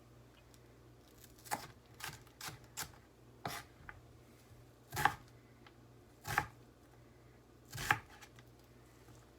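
Knife chopping on a cutting board: about eight irregular strokes starting about a second and a half in, the last three louder and more widely spaced.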